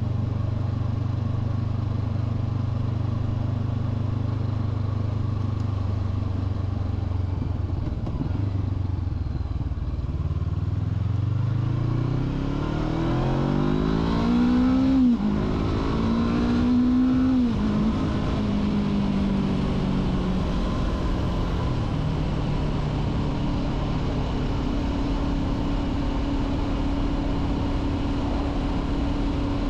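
A 2023 Honda CB500F's parallel-twin engine, heard from the rider's seat. It runs with a low, steady note, then pulls away and accelerates, its pitch rising and dropping sharply twice as it changes up through the gears. It then settles into a steady cruise.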